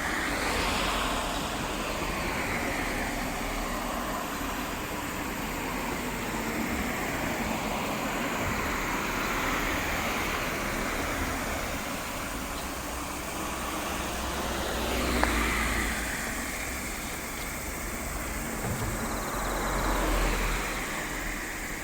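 Road traffic, with cars passing: a steady hiss that swells as vehicles go by, about a second in, near the middle and again near the end, and one sharp click at the middle pass.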